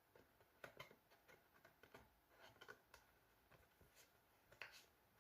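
Faint handling of a paper album insert and cardboard packaging as it is slid back in: soft rustles and light taps, scattered through, with slightly louder ones under a second in and near the end.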